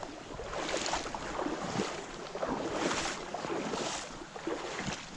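Creek water flowing and splashing, with wind on the microphone.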